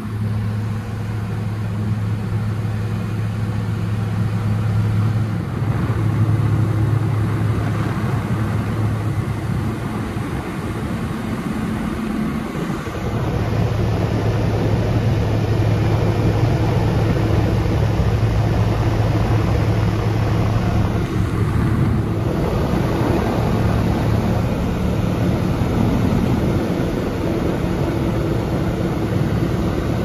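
Light seaplane's propeller engine droning steadily in flight, with rushing air.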